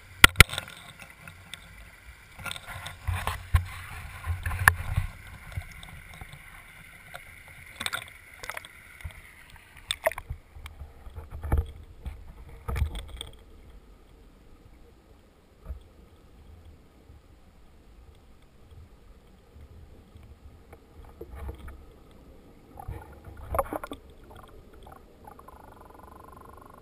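Waterproof camera knocked and handled at the edge of a rushing creek, with the water running behind. About ten seconds in the sound turns dull and muffled as the camera is submerged, leaving scattered knocks and bumps underwater.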